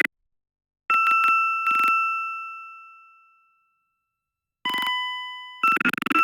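Synthesized electronic tones generated from Mandelbrot set orbits. A bright ringing tone starts about a second in with a few clicks and fades away over a couple of seconds. Near the end a lower steady tone sounds, then gives way to a harsher buzzing, crackly tone.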